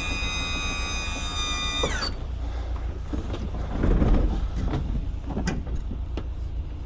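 A held musical chord slides down in pitch and cuts off about two seconds in. Under it a vehicle's engine runs steadily, with scattered knocks and rattles and a louder clatter about four seconds in.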